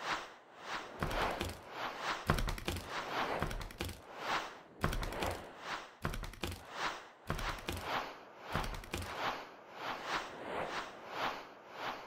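Animated-intro soundtrack: a steady run of whooshing swells, about one and a half a second, with a deep thump under some of them.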